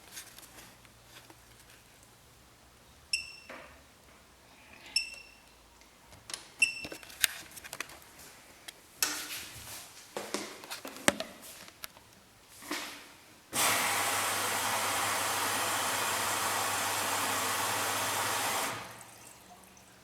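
Bosch MAXX 6 washing machine starting a programme: the control panel beeps three times, then comes a run of clicks. About 13 seconds in, water rushes in through the inlet valve and detergent drawer for about five seconds, then dies away over a low hum.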